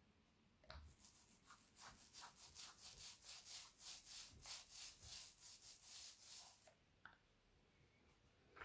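Foam paint roller rolled back and forth through wet acrylic paint over a plastic stencil: a faint, even rubbing hiss at about three strokes a second, stopping a little after two-thirds of the way through.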